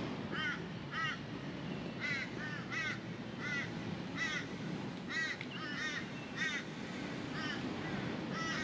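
A crow calling over and over, about a dozen short caws in the space of several seconds, some in quick pairs, over a steady low hum of background noise.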